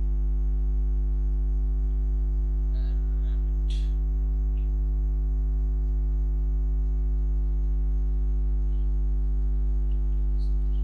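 Steady electrical mains hum on the recording, with a few faint clicks about three to four seconds in and again near the end.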